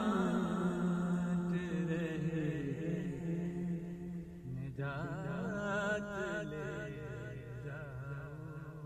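A man singing an Urdu manqabat solo and unaccompanied, drawing out long held notes with wavering, ornamented runs. His voice fades away near the end.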